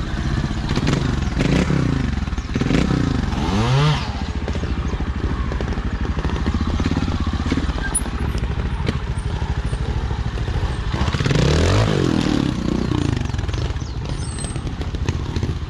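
Trials motorcycle engine ticking over, blipped up sharply several times in the first four seconds and again about twelve seconds in, as the bike is hopped and balanced over boulders.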